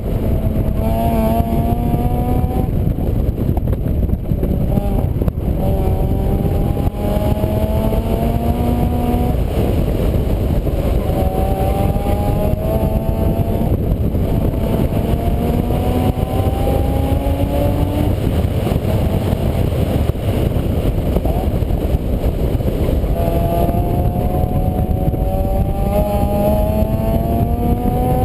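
A vehicle engine rising in pitch over and over, each rise breaking off and starting again lower, as when accelerating through the gears. It sits under a heavy, steady rumble of road and wind noise.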